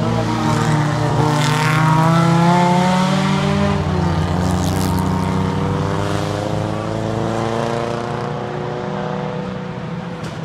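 Vintage race car engines running hard as cars pass on a road circuit. One passes close about a second or two in, its note falling in pitch as it goes by. Then an engine note climbs slowly as a car pulls away, fading toward the end.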